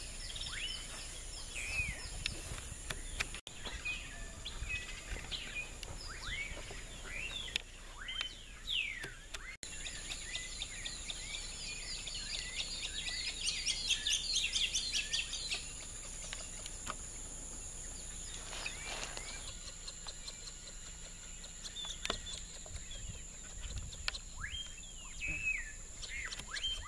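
Many wild birds singing and calling together in a morning chorus of chirps and whistles, busiest with rapid chirping about halfway through. Under it runs a steady high-pitched insect drone.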